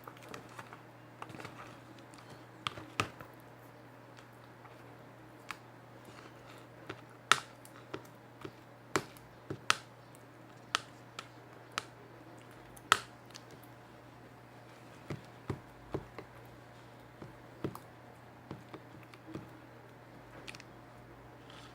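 Slime being worked by hand, giving irregular sharp clicks and pops, roughly one a second and sometimes two or three close together.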